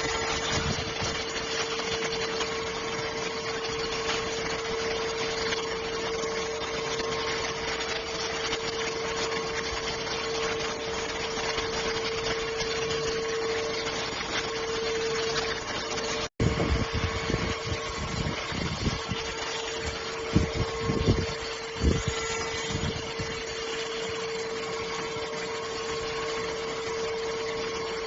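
Cordless stick vacuum cleaner running steadily, its motor giving a constant whine over the rush of air. The sound drops out for an instant about midway, and a few low knocks follow in the second half.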